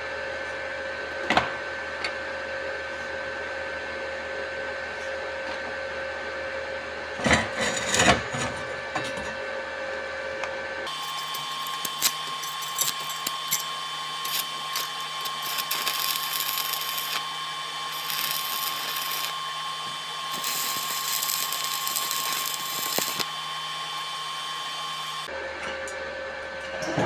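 Stick welding: a few sharp taps as the electrode is struck. Then about fourteen seconds of arc crackle and fizz over the welding machine's steady whine, which shifts pitch while the arc burns. The arc cuts off near the end.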